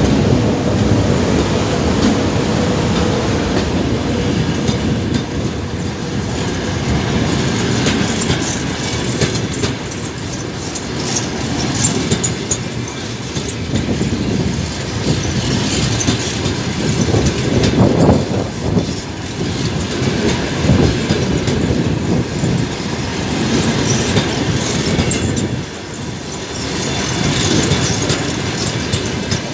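Passenger train rolling past, its wheels clattering over the rail joints in a steady run of clicks.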